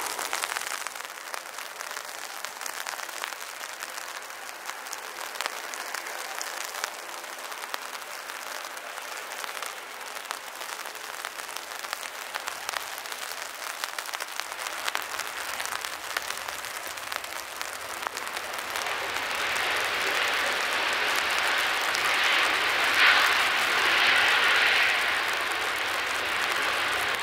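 Steady crackling patter of heavy rain, with the jet engines of a Ryanair Boeing 737 on a wet runway growing into a loud roar over the last third.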